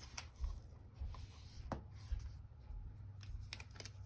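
Quiet rubbing and scratching on a paper planner page, with a few light taps and clicks, as correction tape and stickers are pressed on.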